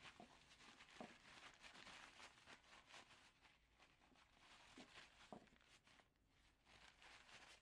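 Faint rustling and scrubbing of a paper towel wiping grinding dust off a small metal stove burner part with alcohol, with a couple of light knocks.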